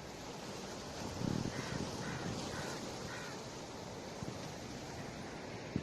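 A bird gives four short calls in quick succession, about half a second apart, over the steady rush of a small mountain river.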